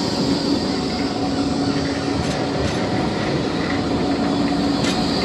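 Blackpool tram running on its rails: a steady rumble with a constant hum, and a few sharp clicks.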